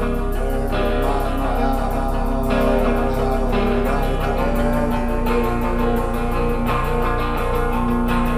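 Guitar-led band music at a steady level.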